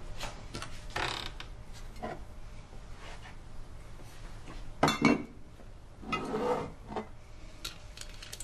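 Glass bottles clinking and knocking against a kitchen cabinet shelf and each other as they are taken down and handled: scattered clinks, the loudest a sharp pair about five seconds in.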